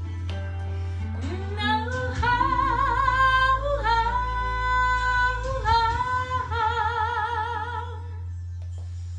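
A woman singing a wordless melody with wide vibrato, climbing into long held high notes, over a recorded instrumental backing track with a steady deep bass.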